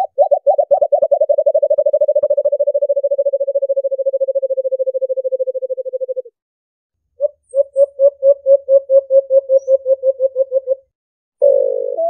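White-eared brown dove (alimokon) call played as a hunting lure: a run of low hooting notes that speeds up and sinks slightly in pitch until the notes nearly run together, stopping about six seconds in. After a short pause a second, slower run of evenly spaced hoots follows and stops shortly before the end.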